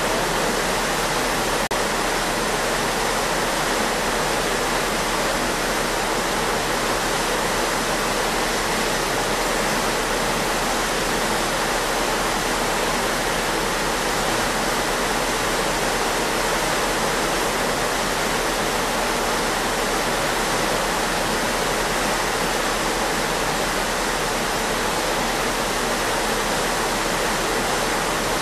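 Churning water of a ship's wake rushing steadily: an even hiss with a low rumble underneath.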